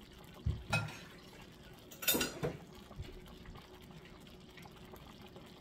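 Thick Alfredo cream sauce bubbling quietly at a simmer in an enameled cast-iron skillet. A few short knocks come in the first two and a half seconds, the loudest about two seconds in.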